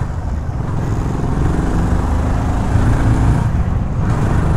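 BSA Gold Star 650's single-cylinder engine running steadily as the motorcycle rides along, with a pulsing low beat under a haze of road noise.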